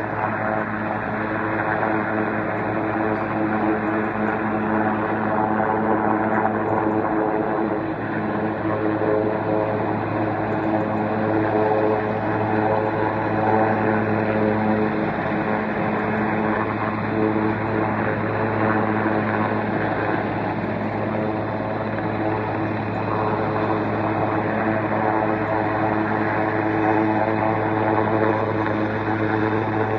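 Helicopter hovering, its rotor and engine giving a steady pitched hum.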